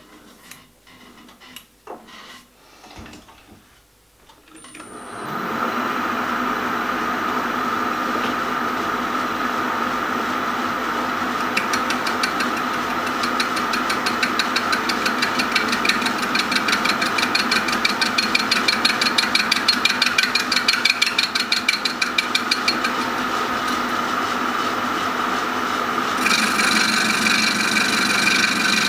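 A few light clicks, then a metal lathe starts about five seconds in and runs steadily while a boring tool takes light cuts inside a dome casting. A fast, even ticking runs through the middle of the cut as the tool cuts the square opening out to round. The sound grows louder near the end.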